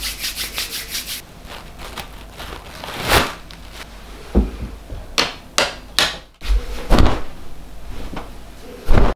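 Rubbing and scraping sounds: fast, even strokes at about five a second for the first second. After that come a handful of separate sharp scrapes, the loudest near the end.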